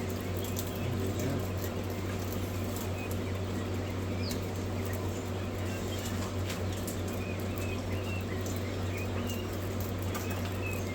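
Young quail giving a few short, high chirps and peeps over a steady low hum, with scattered light clicks.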